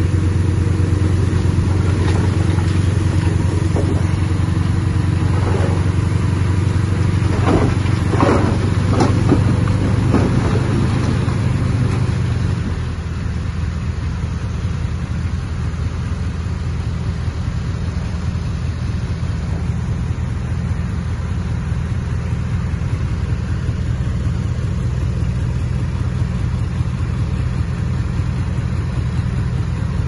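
Diesel engine of heavy earthmoving machinery running steadily under work, with a few knocks about eight seconds in. The engine note eases slightly about twelve and a half seconds in.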